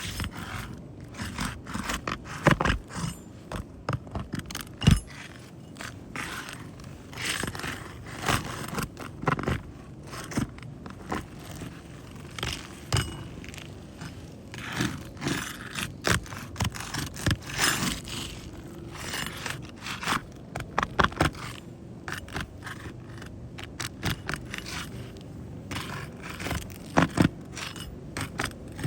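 Irregular scraping, clicking and knocking of hand work on a shingle roof during a roof repair, with one sharper knock about five seconds in.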